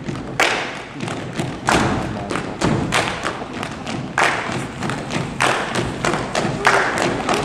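Percussion ensemble performing a body-percussion piece: layered hand claps and thumps in an interlocking rhythm, with a heavier stroke about every second and a quarter.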